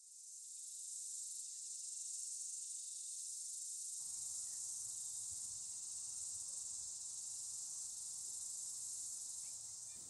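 Steady, high-pitched insect chorus, a continuous shrill trill that fades out near the end.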